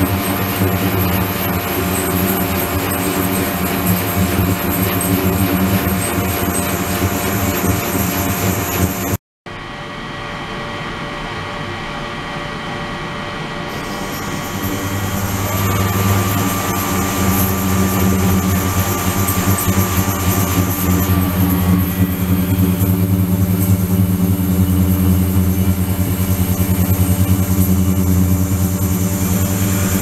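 Ultrasonic cleaning tank and its liquid-circulation pump running, a steady mechanical hum mixed with water churning. The sound drops out for a moment about nine seconds in, then resumes and grows louder from about halfway through.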